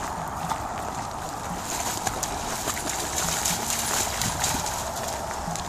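Irish Setter puppy running through shallow water, its paws splashing in quick repeated splashes over a steady wash of moving water.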